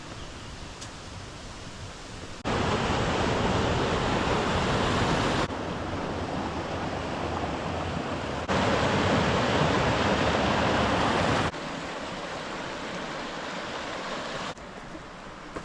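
Steady rushing water of a waterfall. It is cut into short takes of about three seconds, each switching suddenly between louder and quieter.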